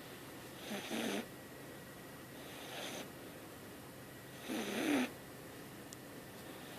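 Young cat snoring in its sleep: three short snores about two seconds apart, the middle one fainter.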